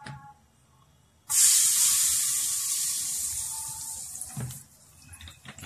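Hot palm oil sizzling sharply as a wet ingredient goes into the pot, starting suddenly about a second in and dying away over about three seconds.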